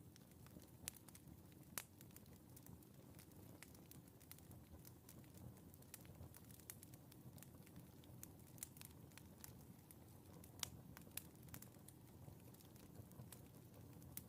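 Wood fire crackling in a fireplace: irregular sharp pops and snaps over a low, steady rumble of the flames.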